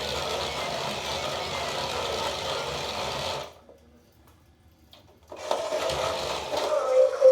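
Remote control toy car's small electric motors and plastic gears whirring steadily as it drives. The whirring stops for about two seconds midway through, then starts again.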